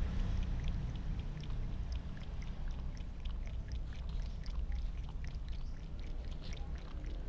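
Cat lapping water from a tub: quick, irregular little wet clicks of the tongue, several a second, over a steady low rumble.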